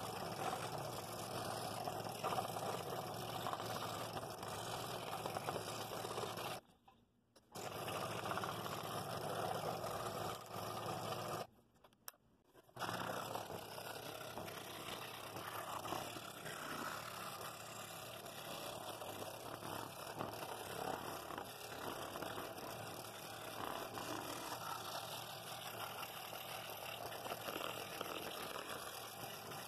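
Scroll saw running and cutting through two stacked pieces of wood, a steady reciprocating saw noise. It breaks off twice for about a second, around seven and twelve seconds in.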